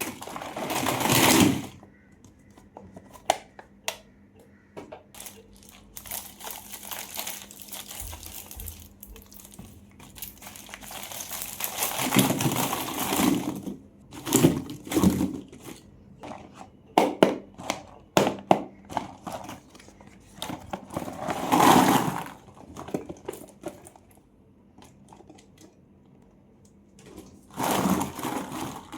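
Candy wrappers crinkling and tearing as sweets are unpacked by hand. Several loud bursts of crackling are separated by sharp clicks and taps.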